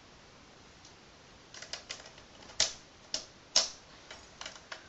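Sharp metal clicks and knocks as a tactical flashlight mount is worked onto an airsoft rifle's rail and tightened with a hex key. The sounds start about a second and a half in and come as a string of light ticks, with two louder knocks about a second apart in the middle.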